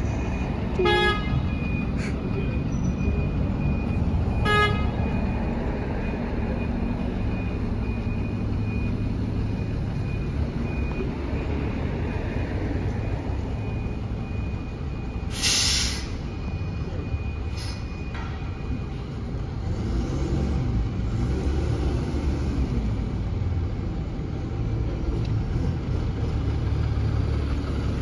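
Buses running and manoeuvring at a bus station, engines rumbling steadily. Two short horn toots come about a second in and again a few seconds later, and an air-brake hiss comes about halfway through.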